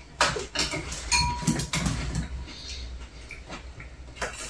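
Chopsticks and tableware clinking during a meal: a few sharp light clicks spread through the moment, one with a brief ringing tone about a second in.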